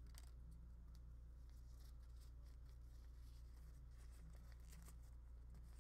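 Near silence: a low steady hum with faint papery rustles as a wet alcohol wipe is unfolded by hand.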